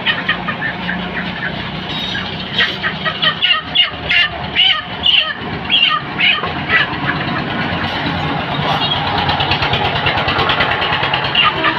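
Road traffic, with a motor vehicle's engine running steadily close by and short sharp sounds scattered over it.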